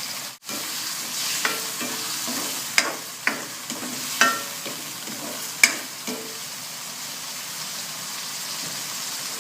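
Tomatoes, onion and garlic frying in oil in a hot wok with a steady sizzle. A metal spatula stirs them, clinking and scraping against the wok several times in the first six seconds.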